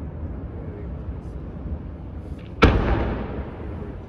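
Fireworks display: a low rumble hangs on, then one sharp, loud firework bang about two and a half seconds in, echoing as it dies away.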